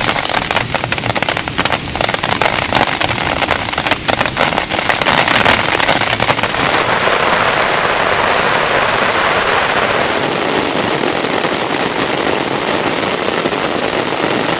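Heavy rain falling, with dense crackling drop impacts for the first several seconds. About seven seconds in, the crackle gives way to a duller, smoother steady rush.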